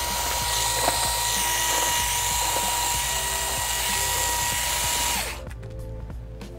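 Cordless electric screwdriver running steadily with a high motor whine as it backs out a laptop's bottom-cover screws. It stops suddenly about five seconds in.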